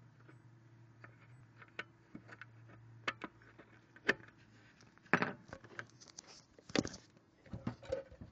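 Irregular clicks and knocks of small hard objects being handled, sparse at first and denser and louder in the second half. A faint steady low hum sits under the first five seconds or so, then stops.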